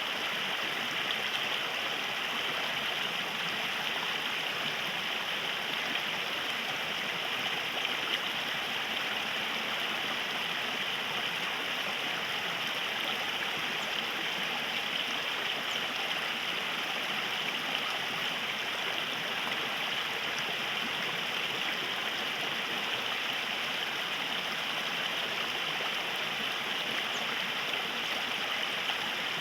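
River water flowing steadily, an even rushing and gurgling of the current.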